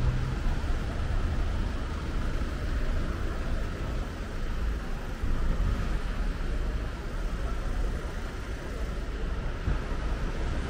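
Steady low rumble and noise of a moving vehicle, with no distinct events.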